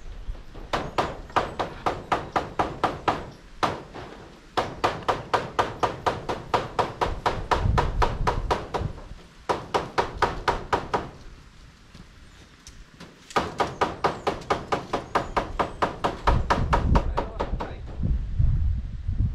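A hammer beating on metal roof sheeting in quick runs of evenly spaced blows, about four a second, each with a short metallic ring, broken by brief pauses. A low rumble comes near the end.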